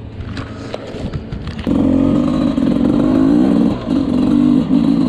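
Dirt bike engine running, then about a second and a half in opening up sharply and revving as the bike pulls away, its pitch rising and falling with the throttle, with a brief drop near four seconds.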